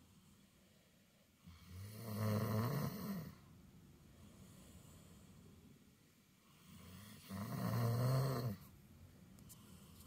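A sleeping dog snoring: two long, loud snores about five seconds apart, each lasting about two seconds.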